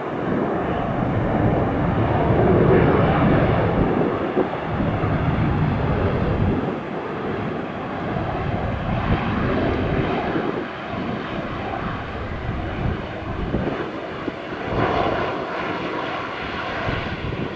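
Airliner's engines running as the plane passes, loudest about three seconds in and then easing into a steadier, lower rumble with a faint whine over it.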